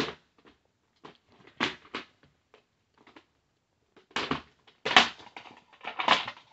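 Hard plastic VHS clamshell case being handled and opened: a series of sharp clicks and clacks, the loudest ones from about four to six seconds in as the case is pulled open.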